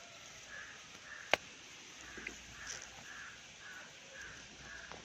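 A bird calling over and over, faint and regular, about two short calls a second, with one sharp click a little over a second in.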